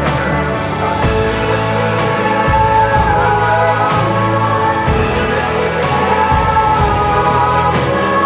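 Background music with a steady beat and sustained melodic lines.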